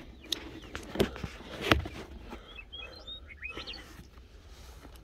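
Three sharp knocks in the first two seconds, then a handful of short, high bird chirps around the middle, over a low steady rumble.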